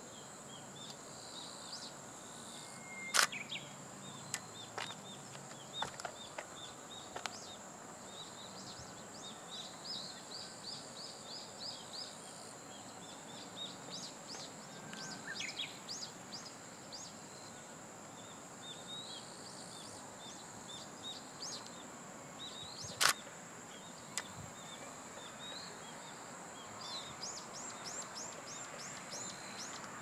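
Faint outdoor ambience: birds chirping in quick runs of short high notes over a steady high-pitched whine, with two sharp clicks, one a few seconds in and another about two-thirds of the way through.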